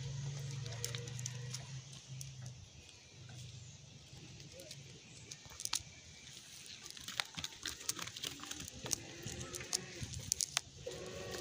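Nylon cast net being handled while fish are picked out of its mesh: soft rustling with scattered light clicks and taps. A low hum sounds for the first two or three seconds, and a drawn-out pitched call begins near the end.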